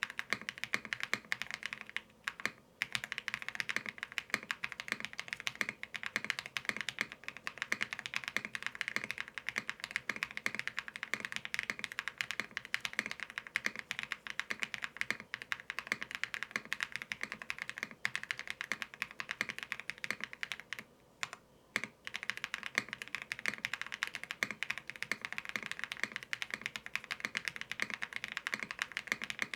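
Continuous fast typing on a mechanical keyboard with hand-lubed Akko CS Silver linear switches, a dense stream of keystrokes with short pauses about two seconds in and about twenty-one seconds in.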